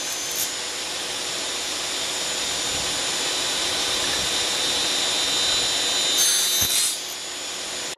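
Table saw fitted with an aluminum cutting blade running steadily. About six seconds in, it cuts briefly into an aluminum angle bracket, adding a brighter, higher sound for about a second.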